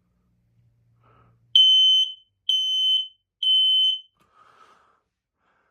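Kidde i9040 ionization smoke alarm sounding during a button test: three loud, high-pitched beeps of about half a second each, the temporal-three alarm pattern.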